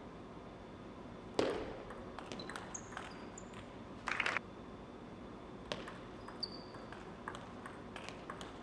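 A plastic table tennis ball bouncing and tapping now and then between points, with one sharper knock about a second and a half in and a short rustling burst about four seconds in. A few brief high squeaks, typical of shoes on a sports floor, come in between.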